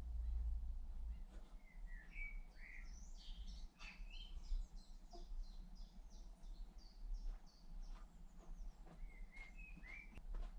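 A songbird singing: runs of short, quick, high chirping notes, strongest in the middle stretch and returning near the end. Under it lies a faint steady low rumble, strongest in the first second.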